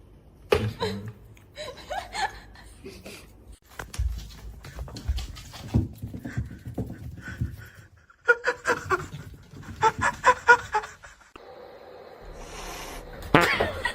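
Animal sounds and people laughing across a string of short clips, with abrupt cuts between them. Partway through there is a run of short repeated calls, about three a second.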